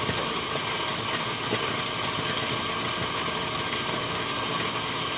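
Eureka Atom flat-burr espresso grinder running steadily, its motor grinding a dose of beans.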